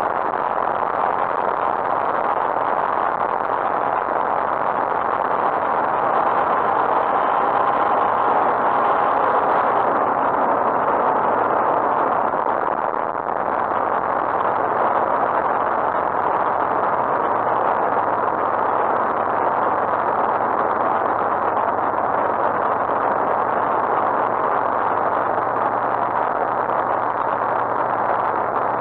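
Steady in-flight drone of a Lightwing GR912's Rotax 912 engine and propeller, mixed with airflow noise, heard from inside the cockpit, with a slight brief dip in loudness about halfway through.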